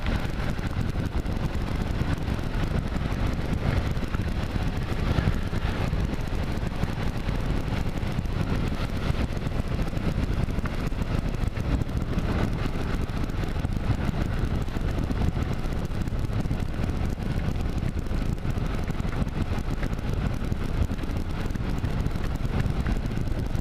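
Steady wind rush and road noise on a camera riding on a moving 2009 Kawasaki KLR 650 motorcycle, with the engine running under it.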